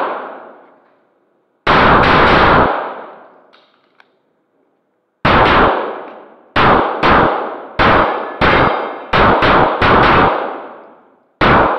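Semi-automatic pistol fired in fast strings: a quick burst of about four shots, a pause of roughly two and a half seconds, then a run of quick pairs and single shots. Each shot echoes off the concrete walls of the indoor range.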